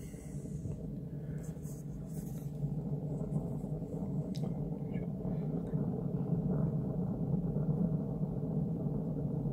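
Solid-fuel stove with a firebrick (chamotte) burner running with a steady low rumble, fire burning cleanly, growing slightly louder; a few faint clicks.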